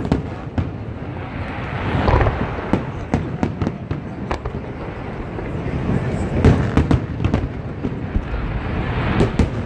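Aerial fireworks shells bursting one after another, dense crackling with heavier booms about two seconds in, again past six seconds and near the end.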